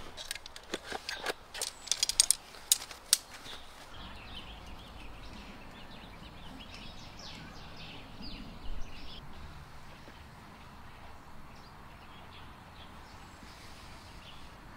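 Camping gear being handled: a quick string of sharp clicks and rustles for the first three seconds or so. Then steady, quiet outdoor ambience with faint bird chirps.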